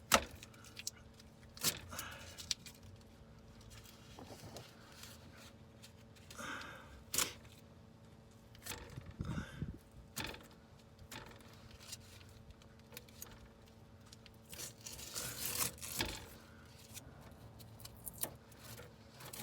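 Scattered clicks, knocks and scrapes of small objects being handled, the sharpest click right at the start, over a faint steady hum.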